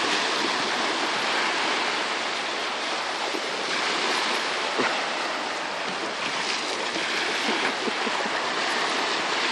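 Small lake waves breaking and washing onto a sandy beach, a steady noise of surf.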